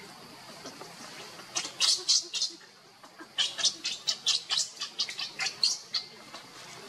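Baby monkey crying in rapid, short, high-pitched squeals, about four a second, in two runs with a brief pause between them.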